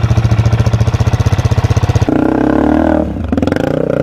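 Four-stroke single-cylinder dirt bike engines chugging at low revs while crawling over rocks and logs, a fast, even thudding. About two seconds in, the sound switches abruptly to a higher engine note that rises and falls with the throttle.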